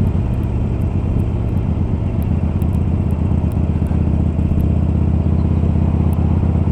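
Harley-Davidson Iron's air-cooled V-twin, bored out to 1200 cc and breathing through Screamin' Eagle slip-on exhausts, running steadily under way. The engine note eases a little through the middle and picks up again near the end.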